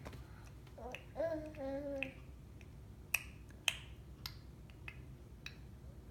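A baby's short babbling vocalization, then a string of sharp tongue clicks, about five in a row, each roughly half a second apart, the first two the loudest.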